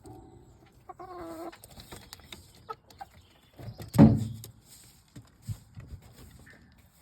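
Hens clucking in short calls, with small clicks and knocks of stones being moved and one loud thump about four seconds in.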